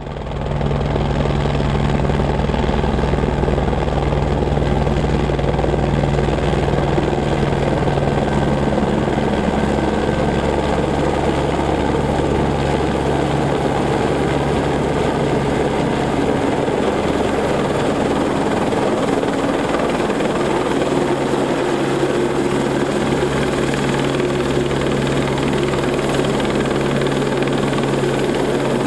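Eurocopter AS350-type single-rotor turbine helicopter flying low and descending to land, its main rotor beating steadily over the engine's running.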